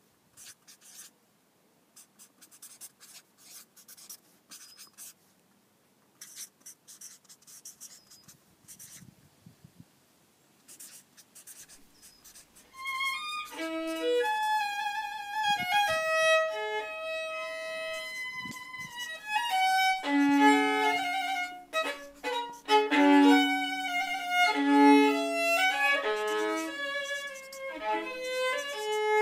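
A felt-tip marker scratching on paper in short, quiet strokes, then about thirteen seconds in a baroque violin starts playing a melody of held notes that carries on to the end and is much louder.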